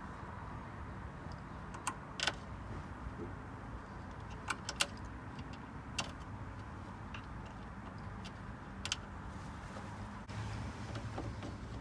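Scattered sharp clicks and taps, about six of them, the loudest a little over two seconds in, from clips being undone and tools handled in the engine bay while the air duct and battery are taken out, over a steady low background hum.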